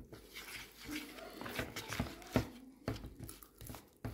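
Metal spoon stirring and scraping thick flour-and-water batter in a plastic bowl: irregular soft clicks and wet squelches, with one sharper knock a little past halfway.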